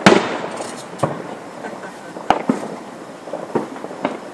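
Fireworks shells bursting overhead: a loud boom right at the start that rumbles away, followed by four or five more sharp bangs at uneven intervals of about a second.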